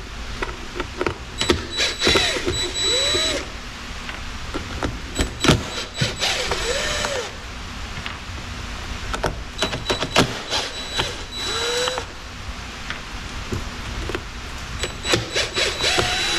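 Cordless drill-driver running in several short bursts, each about a second long with a steady high whine, as it backs screws out of a robot mower's plastic underside. Clicks and knocks of the tool and screws come between the bursts.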